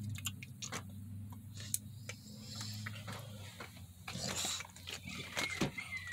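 American bully's breathing and mouth noises, with scattered clicks, over a steady low hum that fades about halfway through; near the end a thin, high whine begins.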